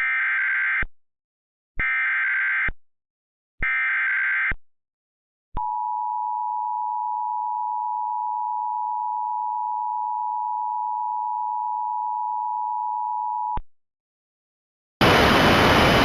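Emergency Alert System signal for a severe thunderstorm warning: three short bursts of SAME header data, each a screechy warble under a second long, then the steady two-tone attention signal held for about eight seconds. A loud hiss of static starts about a second before the end.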